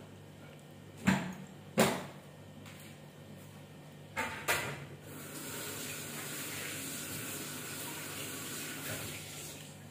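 Household clatter: a few sharp clicks and knocks, two close together about a second in and two more about four seconds in, then a steady hiss that runs for about four seconds and fades out near the end.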